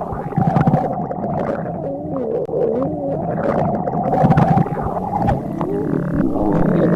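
Stomach growling: a long, unbroken gurgling rumble whose pitch wobbles up and down, getting louder about four seconds in.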